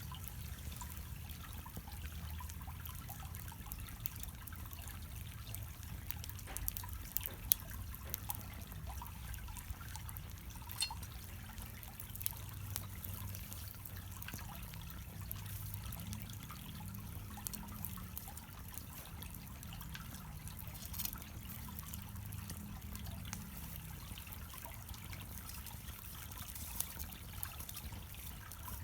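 Small wood fire burning on charcoal in a shichirin: a steady low rustle with scattered sharp crackles and pops, a few louder snaps now and then.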